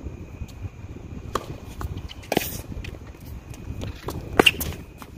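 Tennis ball struck by rackets in a rally on an outdoor hard court: a few sharp hits, the loudest one close by about four seconds in. A low rumble runs underneath.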